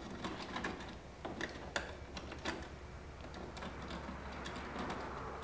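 Small irregular clicks and ticks of a No. 3 Phillips screwdriver turning a screw out of a scooter's plastic foot peg.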